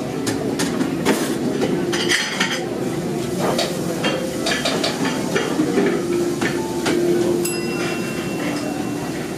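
Metal cutlery clinking and knocking against ceramic plates in irregular taps, with one brighter ringing clink about three-quarters of the way through, over a steady café din.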